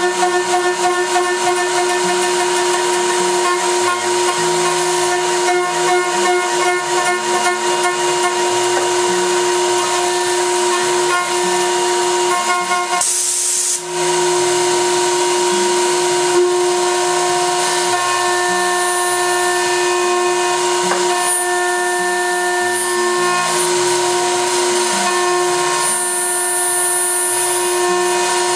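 CNC router spindle whining at a steady pitch while its end mill cuts aluminum, over a hiss of cutting noise. Beneath it the axis drive motors hum in low tones that step up and down as the tool moves along the cut. The sound is briefly interrupted about halfway through.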